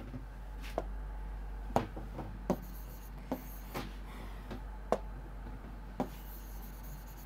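Writing while drawing a diagram: light scratchy strokes and several short, sharp taps spaced irregularly, over a steady low hum.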